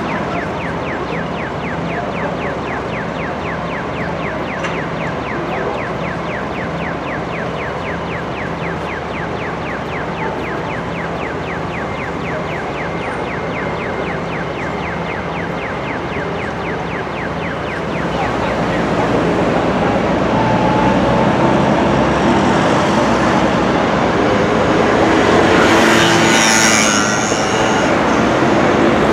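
Engines of heavy construction machinery running steadily, with a fast, even ticking over them for the first half. The engine noise grows louder about two-thirds of the way in, and a brief hissing rush comes near the end.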